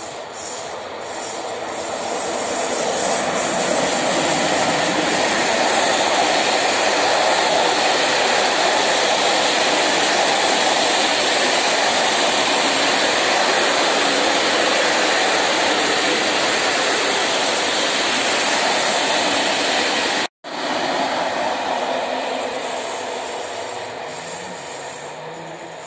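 Long passenger train passing behind an EP07 electric locomotive: a steady rumble of coach wheels on the rails, building over the first few seconds and fading as the train draws away near the end. The sound breaks off for an instant about twenty seconds in.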